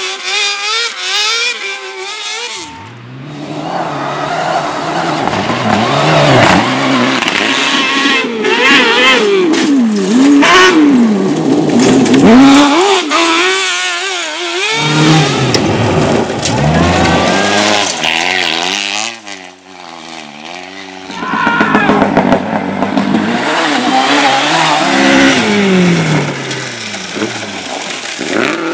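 Rally cars driven hard on a stage, their engines revving up and dropping back through gear changes as they pass. The sound shifts abruptly a few times, from one car's run to the next.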